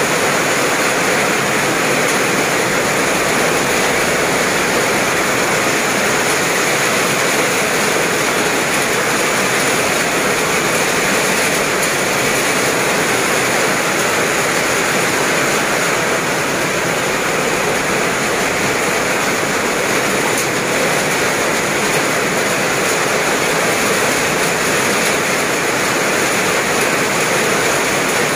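Heavy tropical downpour: a steady, loud hiss of rain pouring onto wet pavement and puddles, with no letup.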